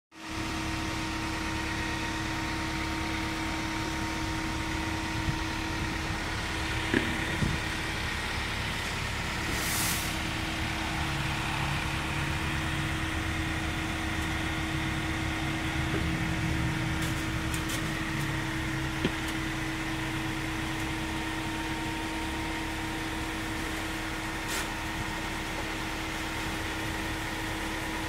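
Steady drone of running industrial machinery or an idling engine: a constant hum over a low rumble. A few sharp knocks stand out, twice close together around a quarter of the way in and once again past the middle.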